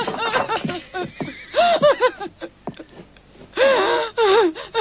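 A person's voice sobbing and gasping in short, high, broken cries.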